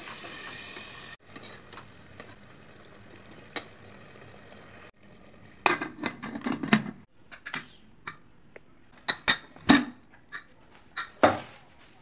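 Aluminium pressure cooker and its lid being handled, with a spoon scraping and knocking against the metal pot. After a soft sizzle of the gravy cooking at the start, there is a run of sharp metallic clanks and clatters from about halfway through.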